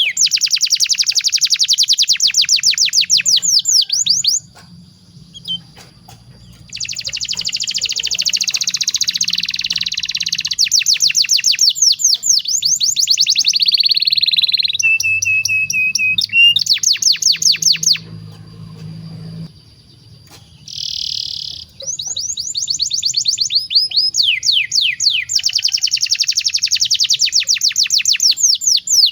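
Domestic canary singing long rolling trills: fast runs of repeated downward-sweeping notes, broken by two short pauses, with one held whistled note partway through.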